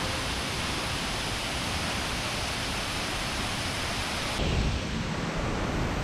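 Steady rush of falling water from a mountain waterfall, an even hiss with no separate events. About four seconds in it turns duller, with more low rumble.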